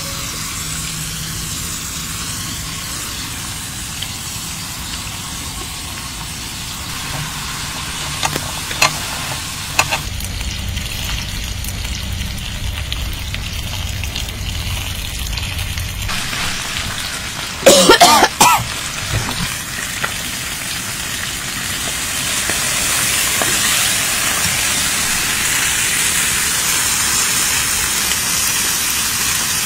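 Pork belly sizzling on a hot griddle pan, the sizzle growing louder and hissier about three-quarters of the way through. A few sharp clicks come early on, and a brief loud clatter comes a little past the middle.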